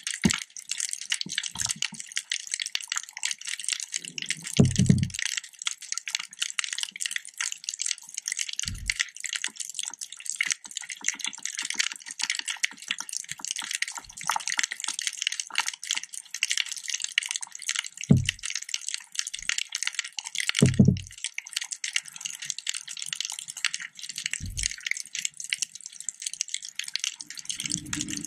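Underwater reef ambience: a steady, dense crackling, broken a handful of times by short low thumps.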